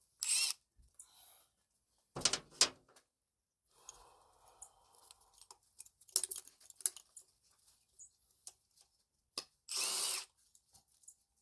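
A handheld power tool run in short bursts, about four times, each about half a second long, with small clicks and rattles in between.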